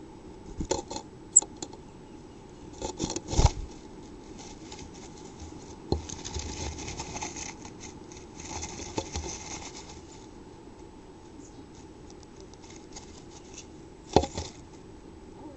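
A chickadee scratching and tapping inside a wooden nest box, with the fur and grass nest lining rustling. There are scattered sharp knocks, the loudest about three and a half seconds in and another cluster near the end, and a longer stretch of rustling in between, over a faint steady hum.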